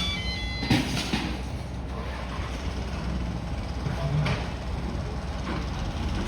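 Small D20 bulldozer's diesel engine running steadily, with a few sharp metallic knocks from the machine.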